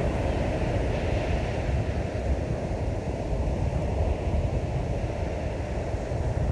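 Steady wind noise buffeting the microphone over the wash of ocean surf breaking on the beach.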